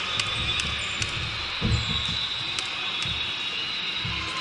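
Volleyball bounced once on the court floor, a low thud about a second and a half in, over the steady din of a big tournament hall with scattered light clicks from the courts.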